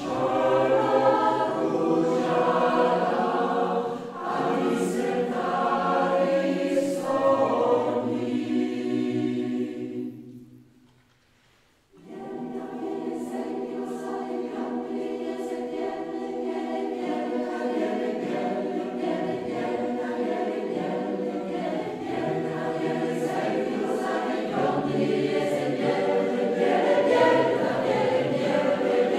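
Mixed choir of men's and women's voices singing in sustained harmony. About ten seconds in, the singing dies away into a pause of near silence lasting about two seconds, then the choir comes back in and sings on.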